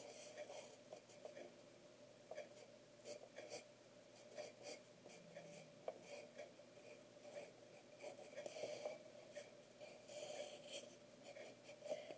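Faint, irregular scratching of a pencil drawing on paper, stroke after stroke, busier near the end.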